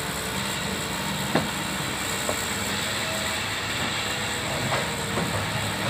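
Hitachi hydraulic excavator's diesel engine running steadily as the machine travels on its steel crawler tracks, with a few sharp knocks from the tracks, the loudest about a second and a half in.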